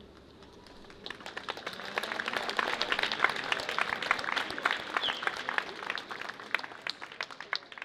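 Crowd applauding, starting about a second in, building to a dense clapping, then thinning out and fading near the end.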